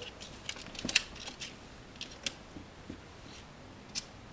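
A ferret scratching itself and squirming in a blanket-lined wicker basket: a scattering of short, crisp scratches and rustles, the sharpest just before a second in and at about four seconds.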